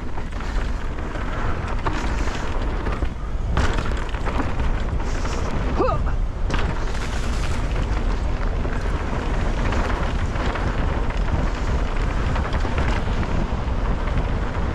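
Mountain bike descending dirt singletrack at speed: wind buffeting the helmet-mounted GoPro's microphone as a steady low rumble, over tyre noise on dirt, with knocks and rattles of the bike over bumps and a short squeak about six seconds in.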